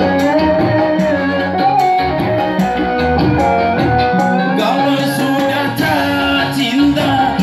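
Live music: a man singing into a microphone over an electronic keyboard accompaniment with a steady beat, played through an amplifier.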